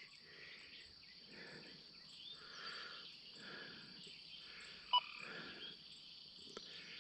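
Faint, soft background with one short electronic beep about five seconds in: the XP Deus 2 metal detector's target tone.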